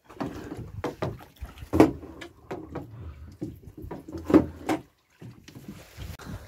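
Irregular knocks and bumps of handling against the side of a small boat, as a speared mojarra is worked off a spear shaft.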